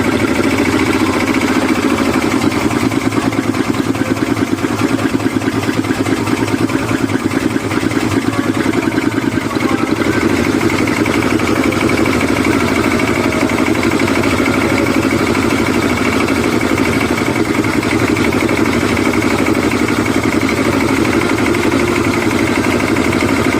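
Yamaha 200 hp outboard motor running steadily on a test run after repair, an even, unchanging engine note.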